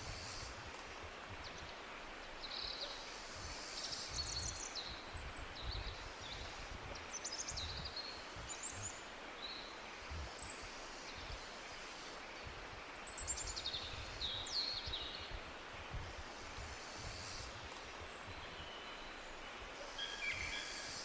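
Tropical birds calling in short high chirps, trills and quick falling whistles, scattered throughout, over the steady rushing hiss of a jungle waterfall.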